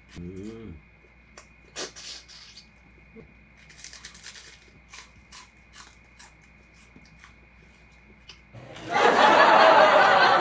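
Quiet eating sounds: a short hummed 'mm' near the start, then soft clicks of chewing and utensils. About eight and a half seconds in, a loud laugh-track sound effect cuts in and keeps going.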